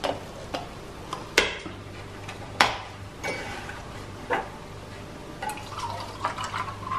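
Four sharp metallic knocks about a second or so apart as a tin can of condensed milk is emptied into a stainless steel bowl and set down, then milk poured from a carton into the empty tin, with a gurgling filling sound near the end.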